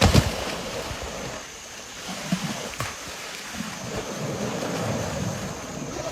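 Water splashing and sloshing as an elephant swims, with a loud splash right at the start and irregular softer sloshes after it. Wind is buffeting the microphone.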